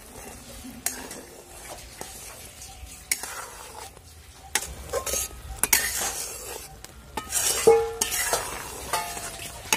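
A metal spatula stirs and scrapes through raw mango chutney as it sizzles and bubbles in a metal wok. The spatula clinks against the pan now and then.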